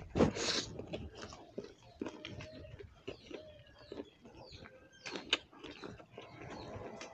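Close-up eating sounds: people chewing and biting pasta and roti, with wet mouth smacks and small clicks throughout. A louder noisy burst comes just after the start and a sharp click about five seconds in.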